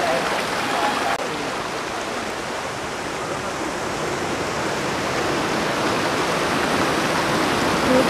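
Shallow mountain stream flowing fast over stones and small cascades: a steady rush of water.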